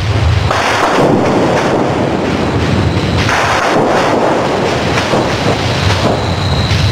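Audified seismogram of the 2017 Botswana magnitude 6.5 earthquake: the ground-motion recording sped up into sound. It plays as a loud, rough, thunder-like rumble that surges several times.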